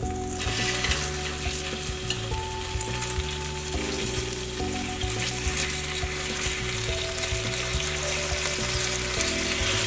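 Skin-on chicken thighs sizzling in hot oil in a frying pan, being seared to crisp the skin. The sizzle starts suddenly and runs steadily, with quiet background music underneath.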